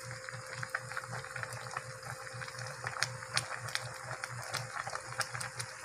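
A pot of shrimp and leafy-vegetable soup at a rolling boil: continuous bubbling with many irregular small pops.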